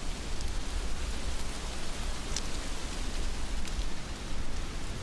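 Heavy rain falling steadily, with a low rumble underneath and a few sharp drop ticks close by, the clearest about halfway through.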